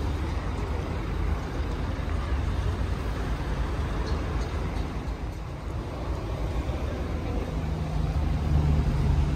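Scania K400 bus's diesel engine running with a steady low rumble; near the end a steadier, louder engine drone comes in and builds.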